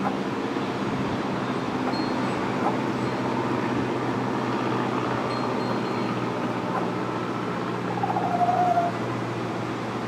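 Steady background hum with a low drone. About eight seconds in, a single tonal sound of about a second slides slightly down in pitch and is the loudest thing heard.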